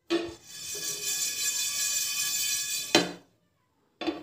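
Spatula scraping and stirring whole coriander, cumin and fennel seeds across a tawa while they dry-roast: a steady, high-pitched scrape for about three seconds, with a knock against the pan at the start and at the end.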